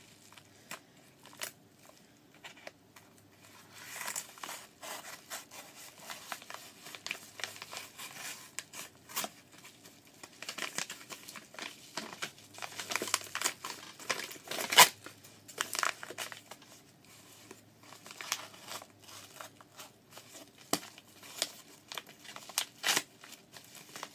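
Packaging being cut and torn open by hand, crinkling and tearing with irregular clicks and rustles. A sharp snap stands out a little past the middle.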